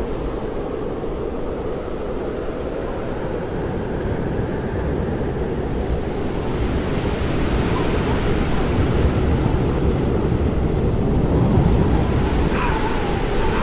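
FPV quadcopter in flight, heard from its onboard GoPro: a steady rush of wind over the microphone mixed with propeller and motor noise, growing a little louder partway through. Near the end a faint motor whine dips and then rises in pitch as the throttle changes.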